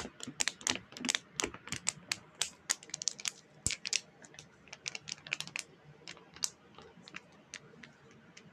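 Rapid, irregular clicking, several clicks a second, thinning out in the second half.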